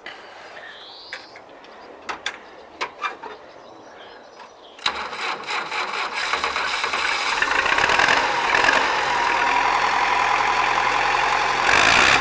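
MTZ tractor's diesel engine starting about five seconds in and running steadily, growing louder over the next few seconds, with a few light clicks before it catches. It was started to listen for a suspected misfire from air drawn into the fuel system after a filter change, and it runs clean with no obvious misfire.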